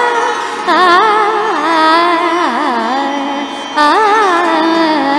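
Music from a devotional hymn to Saraswati: a melodic line of held notes with quick ornamental turns and glides, a new phrase starting about a second in and another near four seconds.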